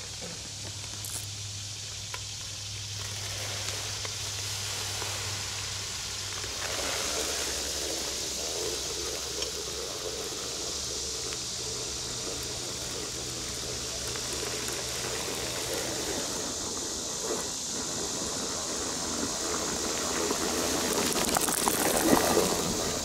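Walk-behind broadcast spreader rolling over grass, its spinner flinging granules in a steady hissing rush. The rush swells loudest about 21–22 seconds in as the spreader passes close. A steady high insect drone runs behind it.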